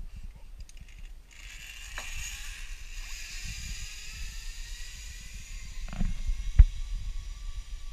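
Zipline trolley pulleys running along the steel cable: a hissing whine with several tones that slowly fall in pitch, starting about a second in. Two sharp knocks sound about six seconds in.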